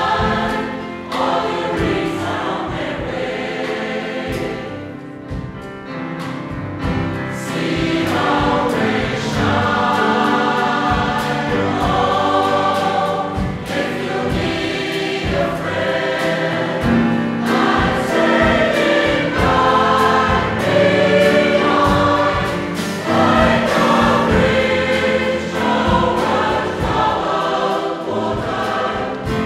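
Mixed choir of men's and women's voices singing in harmony, accompanied by piano and drum kit.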